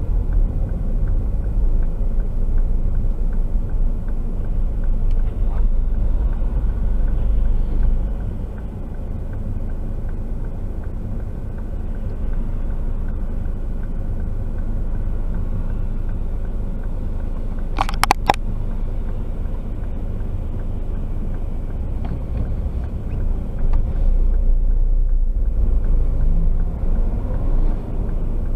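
Steady low rumble of a car driving, tyre and engine noise heard from inside the cabin, easing slightly about 8 seconds in, with a brief double click about 18 seconds in.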